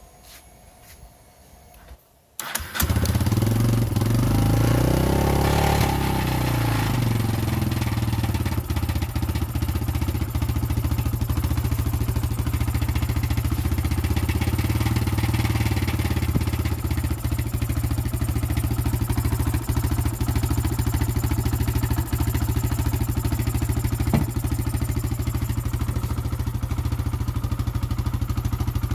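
Kawasaki D-Tracker 125 fuel-injected single-cylinder four-stroke engine starting about three seconds in. It revs up and back down once, then settles into a steady idle, its fuel injector freshly cleaned.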